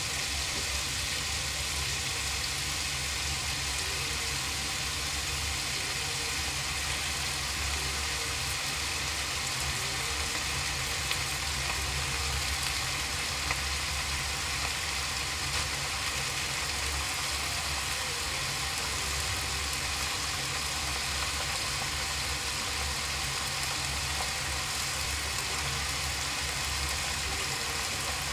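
Onions and bitter gourd slices frying in a kadai over a high gas flame, a steady sizzle under a constant low hum, with a couple of small ticks about midway.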